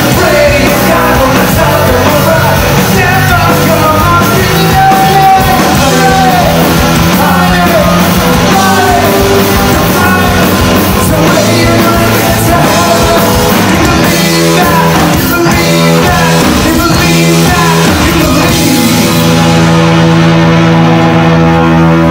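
Live rock band playing loud, with a singer over electric guitars, bass and drums. Near the end the band holds a ringing chord and the cymbals drop out.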